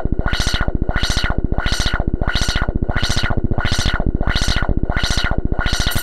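Electronic synthesizer sound: a fast, steady low pulsing with a filter sweeping the upper part open and shut about one and a half times a second.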